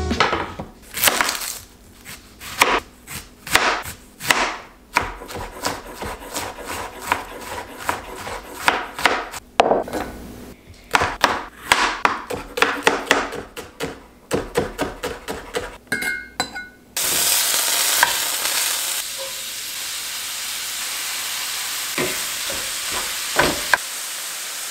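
A knife chopping bell peppers on a wooden cutting board: an irregular run of knocks, several a second. About 17 seconds in it cuts suddenly to the steady sizzle of ground meat browning in a cast-iron skillet, with two sharp knocks near the end.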